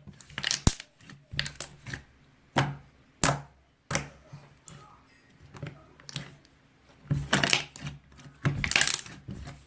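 Slime being pressed and poked by hand: scattered sharp sticky clicks and pops, with two longer crackling squishes near the end.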